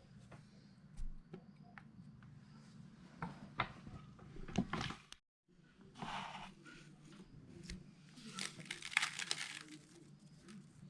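Kitchen handling sounds from preparing manti: scattered clicks and taps, then rustling, crinkling bursts in the second half, with a brief dropout about five seconds in.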